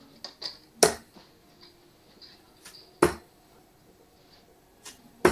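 Steel-tip darts striking a Winmau dartboard: three sharp thuds about two seconds apart, one per dart of a three-dart turn, the last right at the end.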